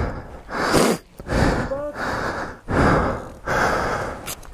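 A person breathing heavily and fast: about five or six loud, gasping breaths, each under a second, with a brief voiced groan near the middle.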